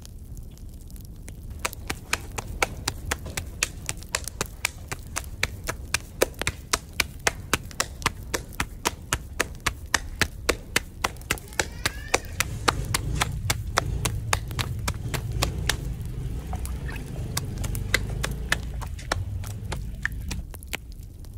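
Thin rolled paratha dough slapped back and forth between the palms, a quick, regular patting of about three slaps a second that stops near the end.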